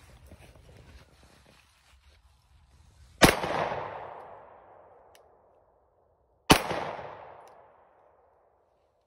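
Two pistol shots about three seconds apart, each sharp crack followed by an echo that dies away over about two seconds.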